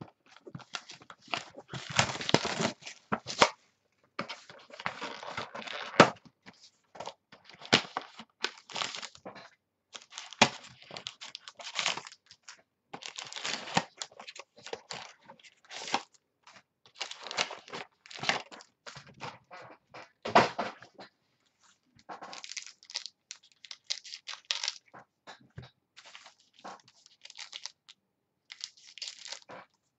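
Football trading cards and fold-out card booklets being handled: irregular rustling, sliding and tapping of card stock, with a few sharper taps.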